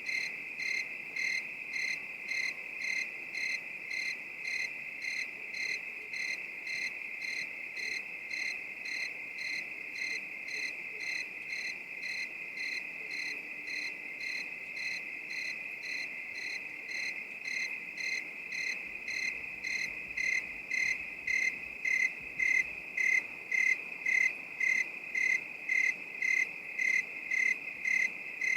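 Crickets chirping: a steady high trill with one cricket's regular chirps, about three every two seconds. The chirps grow louder about two-thirds of the way through.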